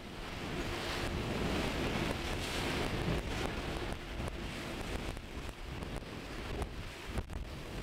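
Wind buffeting the microphone, over the rushing wash of the sea.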